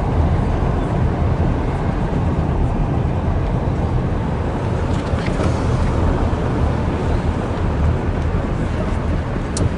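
Car driving at steady speed: a constant low road-and-engine rumble with wind noise buffeting the microphone.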